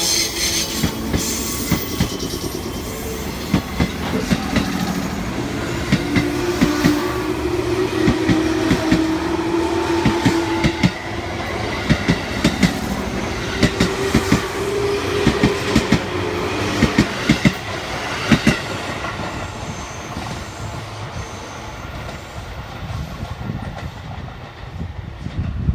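JR Kyushu 415 series electric train pulling out past the platform, its cars rolling by with a steady motor hum that rises slightly in pitch. Wheels clack over the rail joints in irregular groups from about 6 s to about 18 s, and the sound then fades as the last cars go by.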